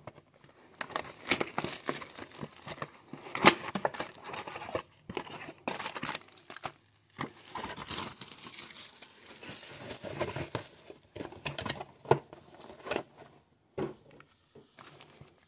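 Cardboard hockey-card blaster box being opened and its foil-wrapped card packs taken out and handled: irregular crinkling, rustling and tearing with sharp clicks, loudest about three and a half seconds in.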